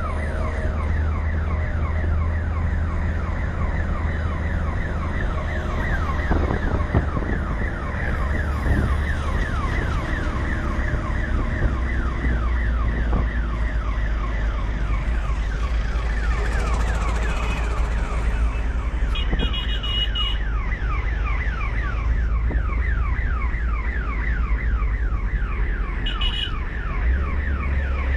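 Ambulance's electronic siren sounding continuously in rapid repeated falling sweeps, heard from inside the cabin over the steady low rumble of the vehicle's engine. Short high beeps come in briefly about two-thirds through and again near the end.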